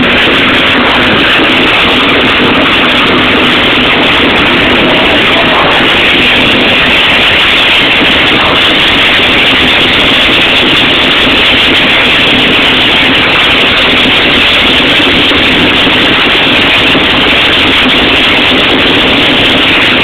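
Loud, steady rushing and hissing inside a steam locomotive's cab, from the locomotive's steam and fire, with no beat or pause.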